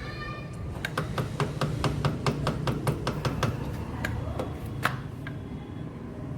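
Rapid, even metallic clicking, about six clicks a second for a few seconds, then a few slower, spaced-out clicks, over a low steady hum.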